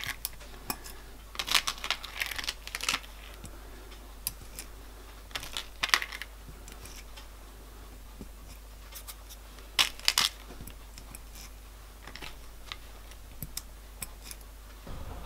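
Steel ball bearings clicking one by one into the riveted side-plate cage of a vintage motorcycle clutch ball race: irregular sharp metallic clicks, some in quick little runs.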